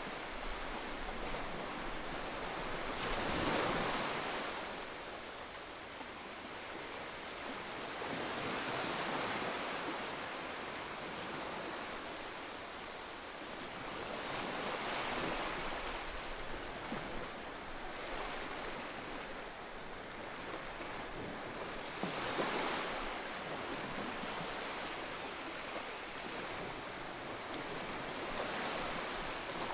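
Ocean waves washing ashore in a slow rhythm, each surge swelling and fading, about one wave every six seconds.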